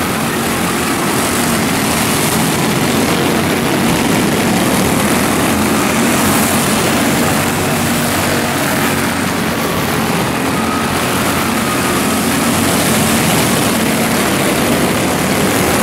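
A pack of quarter midget race cars running laps on a dirt oval, their small engines making a steady, loud drone with no break.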